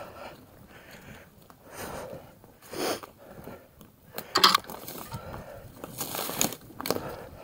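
Mountain bike ride on a dirt singletrack trail: tyres crunching over the ground and the bike rattling in uneven surges, with the rider breathing hard. A sharp knock comes about four and a half seconds in.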